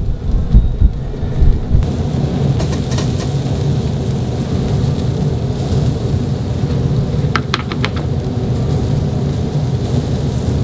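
Shrimp and meat skewers sizzling over a charcoal grill, a steady rain-like hiss over a low rumble. A quick run of about four sharp ticks comes a little past halfway.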